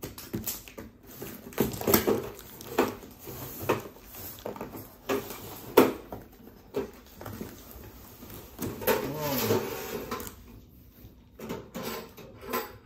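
Unboxing noises from a long cardboard carton: a knife slitting the packing tape, then cardboard flaps scraping and knocking and plastic wrap rustling as white steel wardrobe rails are lifted out. A busy run of sharp knocks and scrapes, the loudest about six seconds in.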